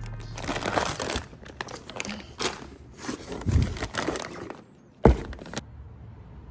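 Irregular rustling and crinkling noises, with a sharp knock about five seconds in, followed by a low steady hum.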